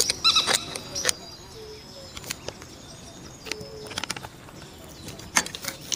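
Metal parts of an old, rusty gun clicking and knocking as they are handled and worked apart by hand. There is a cluster of sharp clicks in the first second, then scattered single knocks.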